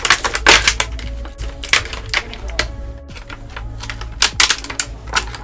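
Clear plastic toy packaging crinkling and crackling as it is pulled and twisted apart by hand, a quick irregular run of sharp crackles.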